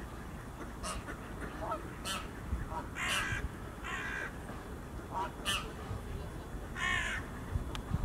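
Birds calling: three drawn-out calls, each about a third of a second, and several short sharp notes in between, over a low steady background rumble.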